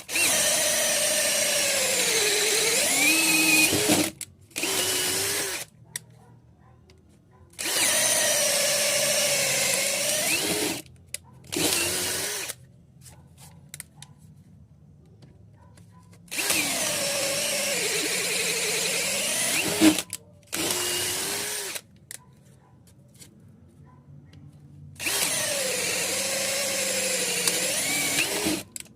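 DeWalt DCD7781 cordless drill running in four cycles, each a run of about three to four seconds followed after a brief pause by a short burst of about a second. The motor whine shifts in pitch and dips near the end of each long run.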